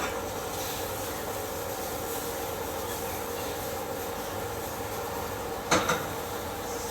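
Stove range hood fan running steadily with a low hum, turned on to clear the smoke, over food frying in a pan. A brief clatter of a utensil or pan comes near the end.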